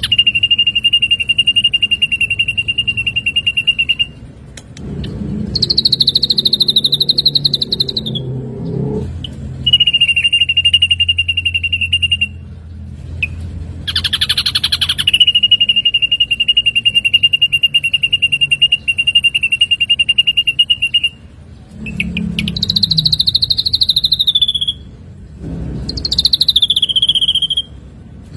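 Ashy drongo singing: long, rapid buzzy trills held at one steady pitch, alternating several times with shorter, higher trills that slide down in pitch.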